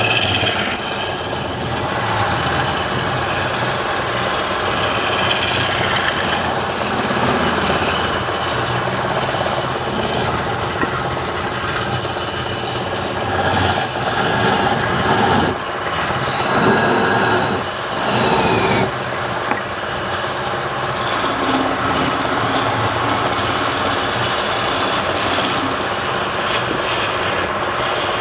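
Wood lathe running, with a turning tool cutting the spinning wood; the scraping cutting noise swells and eases as the tool goes in and out of the cut.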